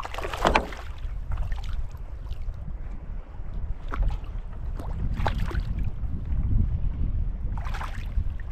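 Hooked smallmouth bass splashing at the surface beside the canoe, a sharp splash in the first second and smaller splashes about four, five and eight seconds in. Steady wind rumble on the microphone runs underneath.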